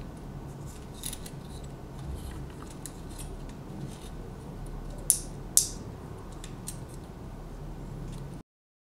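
Small electronics boards, an amplifier module with a finned heatsink and a plastic-faced audio player panel, handled and turned in the fingers: light scattered clicks and rubs, with two sharper clicks about five seconds in. The sound cuts out abruptly near the end.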